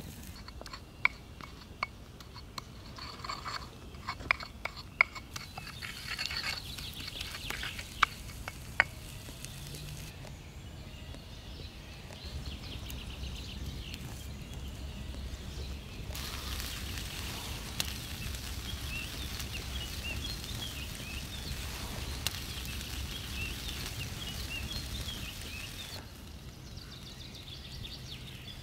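A run of sharp clicks and taps in the first nine seconds or so, then small birds chirping over a low steady rumble.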